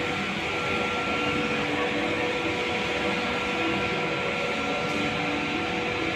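Vertical wind tunnel's fans running, a steady rush of air through the flight chamber with a faint steady hum under it.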